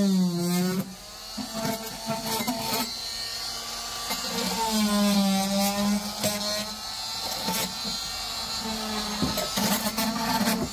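Harbor Freight 2-amp variable-speed oscillating multi-tool with a flexible scraper blade buzzing as it scrapes old rubber sound deadening off a car's floor pan. Its pitch sags and recovers as the blade bears down, in spells, with scattered scraping clicks.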